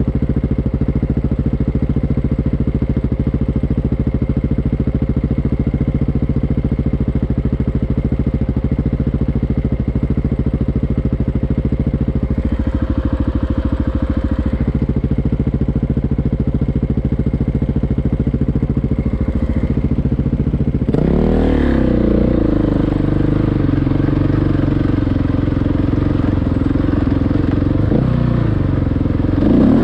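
Single-cylinder enduro motorcycle engine running at a steady speed. About two-thirds of the way through it begins revving up and down, and it revs once more near the end.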